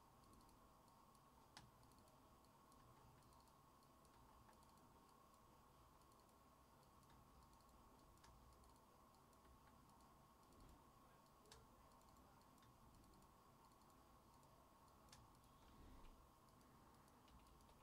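Near silence: room tone with a faint steady hum and a handful of faint, scattered clicks from computer use.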